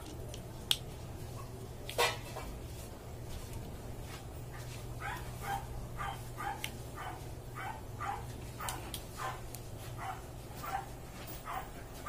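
A dog barking in a long run of short barks, about two a second, starting about five seconds in. Before that, two sharp clicks from the plug being handled, the second about two seconds in.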